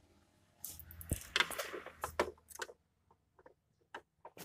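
Clatter and clicks of a screwdriver and plastic panels handled inside a photocopier: a burst of rattling in the first half, then scattered light clicks.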